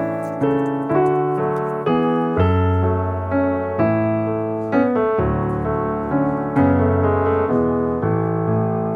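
Background piano music: a slow run of struck notes and chords, each ringing and fading before the next.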